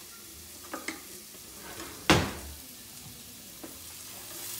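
Chopped onions sizzling in a hot skillet, faint at first and growing louder near the end. A few light clicks and one sharp knock about two seconds in.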